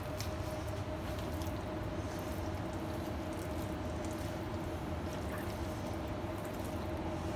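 Faint wet squishing and patting of raw deboned chicken being rolled up by hand on a wooden cutting board, over a steady background hum with a constant mid-pitched tone.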